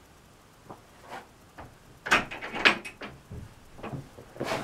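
A few faint footsteps on the cellar floor, then knocks and rattles from an old wooden double door being worked open, in a quick cluster about two seconds in and again near the end.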